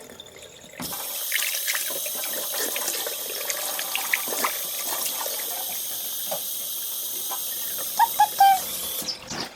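Water running from a tap into a sink. It starts about a second in and shuts off near the end, with a few short bird calls just before it stops.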